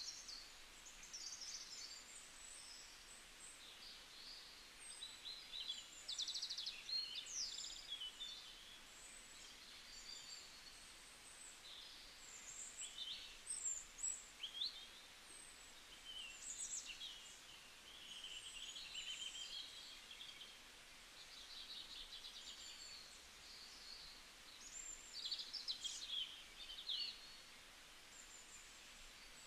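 Small birds chirping and twittering faintly, with short rising and falling notes and a few quick trills, over a low steady hiss.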